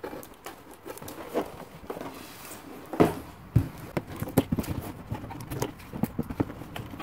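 Cardboard box being handled and opened: irregular taps, knocks and rubbing on the cardboard, with two sharper knocks about three seconds in, and scissors snipping the tape seal.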